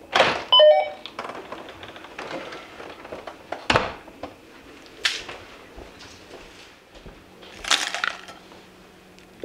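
A house door being opened and closed: a rattle of the handle and latch with a brief ring as it opens, a thud as it shuts a little under four seconds in, then a latch click. Near the end comes a jangle as a bunch of keys is set down on a hard table top.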